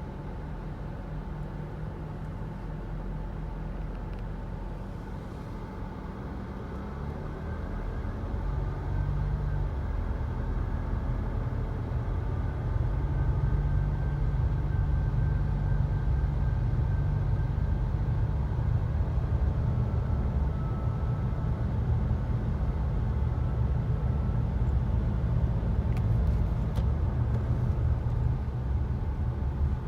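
Mitsubishi Delica D:5 on the move, heard from inside the cabin: a steady low engine and road rumble. It grows louder from about eight seconds in, then holds steady.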